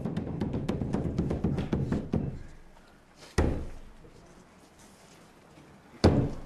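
Drumming in a traditional Japanese performance: a fast run of strikes for about two seconds that fades away, then two single heavy strikes about two and a half seconds apart, each ringing out.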